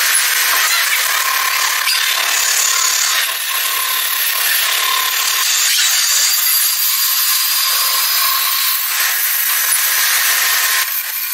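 A power tool working metal: a steady, harsh, high-pitched cutting noise with faint whining tones running through it, dipping briefly about three seconds in.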